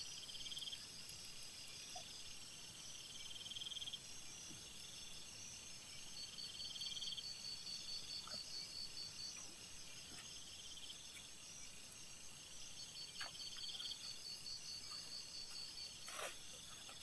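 Night insects chirping: a rapid, high-pitched pulsing trill that stops and starts, and a second buzzing trill repeating every few seconds. A few faint rustles of a fabric bag being handled come in late.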